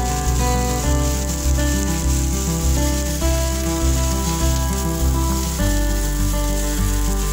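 Chicken breasts sizzling steadily as they pan-fry, under acoustic guitar background music.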